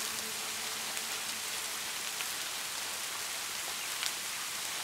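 Steady rain falling, an even hiss with a few individual drops ticking out above it.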